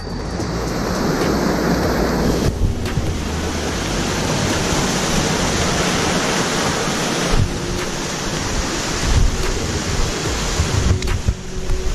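Steady rushing noise of creek water running over rocks, with low wind rumble on the microphone. The sound shifts abruptly a few times, about two and a half, seven and a half and eleven seconds in.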